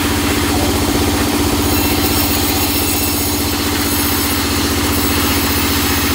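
Vertical band saw mill running unloaded, its blade not in the wood: a steady drone with a regular low throb and a constant hum.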